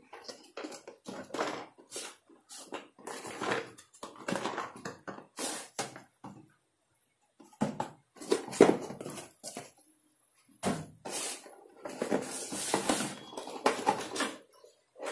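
Cardboard trimmer box being handled: irregular rustles and scrapes as the white inner box is slid out of its printed sleeve, with a couple of short pauses.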